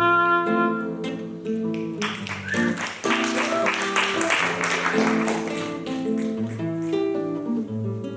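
Instrumental music of sustained pitched notes shifting in a melody, with a noisier wash over the middle few seconds.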